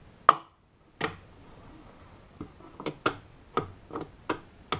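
Folding footpedal of a Solowheel Xtreme electric unicycle being flipped and wiggled by hand, giving a string of irregular sharp clicks and knocks, which the owner puts down to looseness in the pedal.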